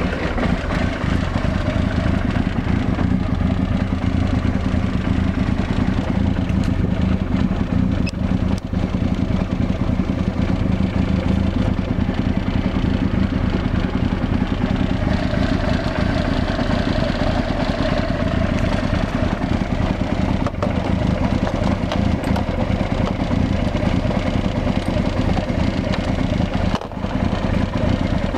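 Honda CBR900RR Fireblade's inline-four engine idling steadily.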